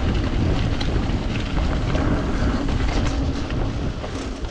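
Mountain bike descending a wet, muddy dirt trail at speed: wind buffeting the microphone over tyres rolling through mud, with scattered small clicks and knocks from the bike.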